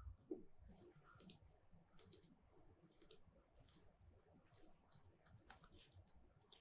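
Faint, scattered keystrokes on a computer keyboard, typing a search, over near silence.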